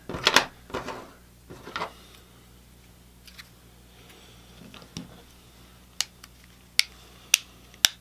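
The plastic case of a mini PC stick being handled and pressed shut: a few handling noises near the start, then four sharp clicks in the last two seconds as the case halves snap together. A faint low hum sits underneath.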